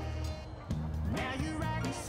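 Background music: a guitar-led song.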